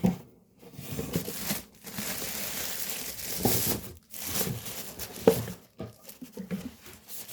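Packaging crinkling and tearing in bursts as a new mini humidifier is unwrapped by hand, with a knock right at the start.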